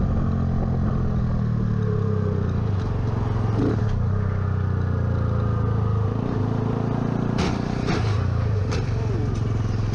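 Motorcycle engine running steadily at highway speed, heard from on the bike with road and wind noise. The engine note shifts about six seconds in, and a few short sharp clicks come near the end.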